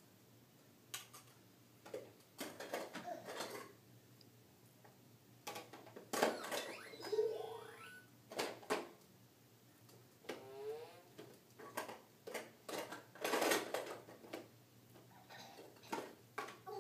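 Plastic toy blocks clacking and knocking irregularly as a baby handles them, with a few brief baby vocal sounds in between.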